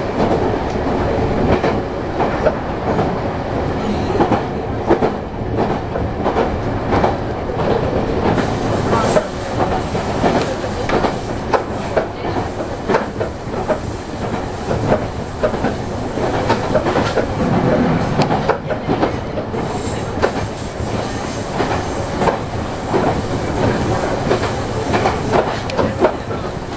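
Meitetsu electric train running on the line, heard from inside the leading car: a continuous running rumble with repeated clicks of the wheels passing over rail joints.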